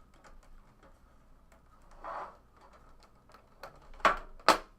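Trading cards and their packaging being handled: light scattered clicks and a brief rustle about two seconds in, then two sharp snaps about half a second apart near the end.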